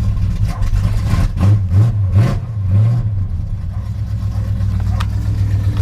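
Chevrolet K10 pickup engine running just after a flooded cold start: revved up and down a few times in the first few seconds, then settling to a steady, rough-edged idle.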